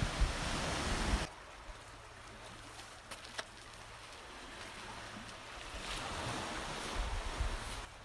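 Sea waves washing onto a sandstone shore, with wind rumbling on the microphone at first. About a second in the sound cuts to a quieter, gentle wash of small waves over flat rock, which swells again near the end.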